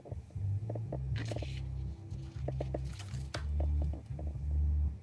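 Low hum and crackle from a Lepy mini stereo amplifier's small speakers as a 3.5 mm audio jack is pushed into a laptop's headphone socket. The hum cuts in and out unevenly, with short bursts of crackle.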